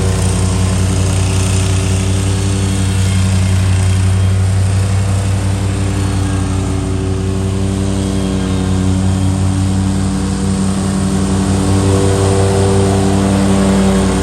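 Lawn mower engine running steadily at working speed, with a constant low hum that gets slightly louder near the end.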